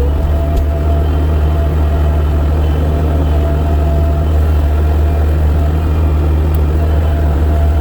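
Heavy engine running at a steady, unchanging speed, a loud deep hum.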